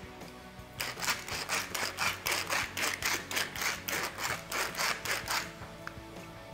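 Pepper mill grinding black pepper: a rapid rasping run of about four or five strokes a second, starting about a second in and stopping after about four and a half seconds.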